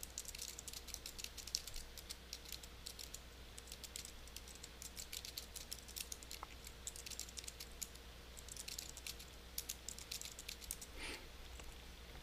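Computer keyboard typing: quiet, rapid keystrokes with a short pause a little past the middle, then more typing.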